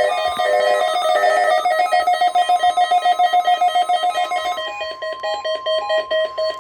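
NOAA Weather Radio's steady 1050 Hz warning alarm tone from a broadcast test, sounding under a louder electronic beeping that alternates rapidly between two pitches. The beeping changes to slower two-note beeps about four and a half seconds in.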